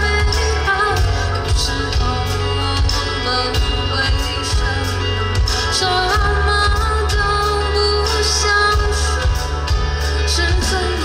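Live band playing a pop song: sung vocals over a steady drum beat and heavy bass.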